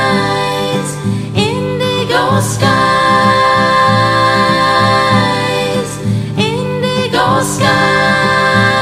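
Song with layered female vocals holding long notes over guitar, without clear words. The voices slide in pitch twice, about a second in and again past the middle.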